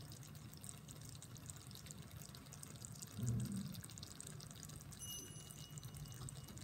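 Hot oil sizzling and crackling in a tray of fried eggplant and onions, a dense patter of fine crackles over a low steady hum, with one brief low thump a little over three seconds in.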